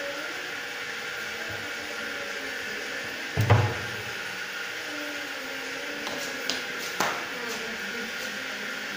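Modular kitchen wall cabinet door swung shut with a single loud knock about three and a half seconds in. Two lighter clicks from the cabinet doors follow near the end, over a steady background hiss.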